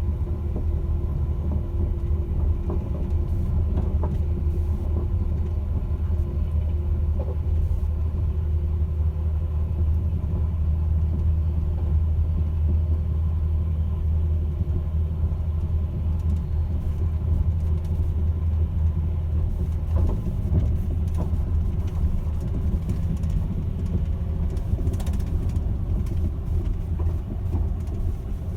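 Caledonian Sleeper train running: a loud, steady low rumble with a deep drone that eases slightly about two-thirds of the way in, and a few faint clicks.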